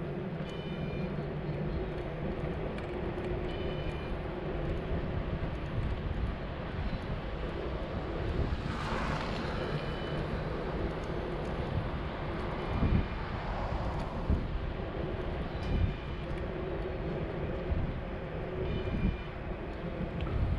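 Steady low rumble of vehicle noise, with a rush that swells and fades about halfway through and a few short knocks in the second half.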